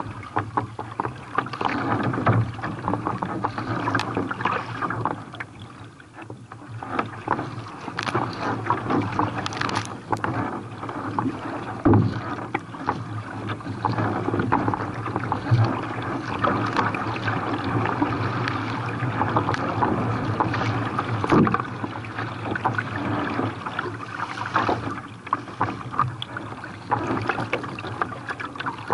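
Water splashing and sloshing around a kayak being paddled through waves, a continuous busy noise full of small slaps, with a couple of sharper knocks along the way.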